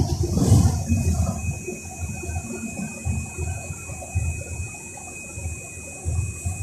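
Cabin noise inside a moving bus: an uneven low rumble of engine and road, with a steady high hiss and a thin steady whine over it.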